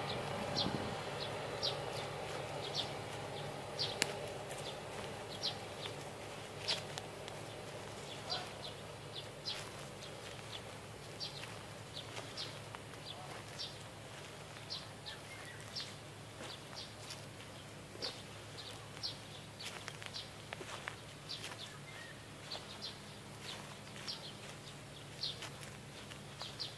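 A bird chirping in short high notes, one or two a second, over a faint steady low hum.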